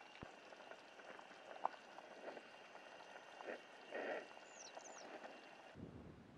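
Vegetable soup simmering in an aluminium mess tin on a camping gas burner: faint steady bubbling with a few light knocks of the wooden stirring spoon. A bird gives a few short high chirps about two-thirds of the way through.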